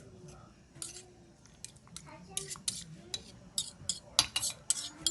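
Kitchen utensils clinking and scraping against dishes: a quick, irregular run of short clacks that grows busier from about two seconds in.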